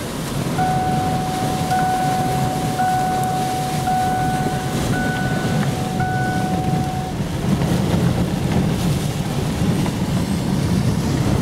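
Hurricane wind buffeting a truck, heard from inside the cab as a loud, steady low rush that grows a little stronger in the second half. For about six seconds a steady electronic tone sounds alongside it, restarting about once a second.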